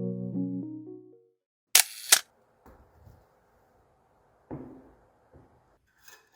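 Soft tonal music fades out, then a camera shutter fires with two sharp clicks in quick succession, followed by faint soft knocks and small clicks.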